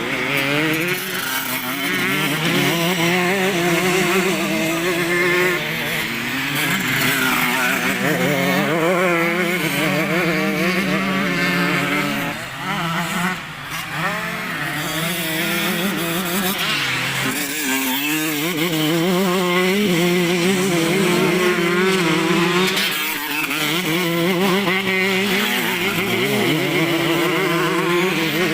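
Several motocross motorcycles racing, their engines revving up and down and overlapping without a break.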